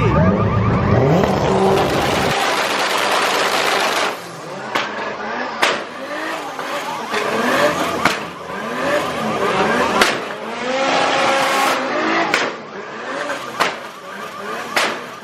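Performance car engine revving hard, then a series of sharp exhaust bangs, about eight of them a second or two apart, as the car pops and shoots flames. A car alarm warbles underneath.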